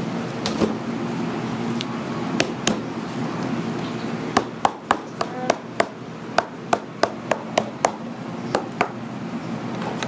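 Sharp knocks on the bottom of an upturned aluminium cake pan, a few scattered taps and then a quick run of about a dozen, roughly three a second, to loosen the steamed layered cake out onto the tray.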